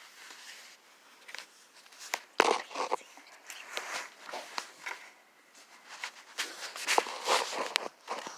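Shuffling footsteps close to the microphone, with scattered crunches, rustles and clicks; the loudest crunches come about two and a half seconds in and again near the seven-second mark.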